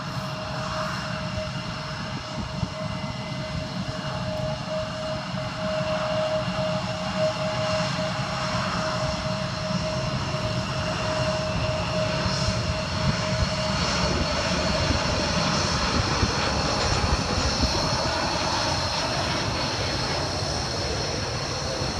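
Jet airliner taking off and climbing out, its engines a steady rumble with a high whine. The whine fades after about fourteen seconds as the sound grows a little louder.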